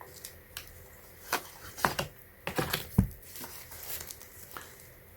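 Light handling noise from a plastic power strip being turned and shifted in the hands: a scattering of soft clicks and taps, the sharpest coming between about one and three seconds in.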